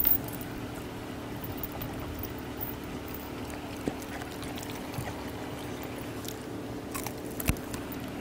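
Young Jindo dog eating boiled pork from a hand and a bowl, with occasional faint chewing and mouth sounds and a sharper click about seven and a half seconds in, over a steady low hum.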